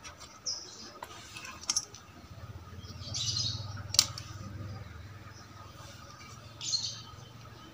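Light handling noises of a TV's CRT neck board and its ribbon cables being moved about: a few short rustles and scattered clicks, the sharpest click about four seconds in.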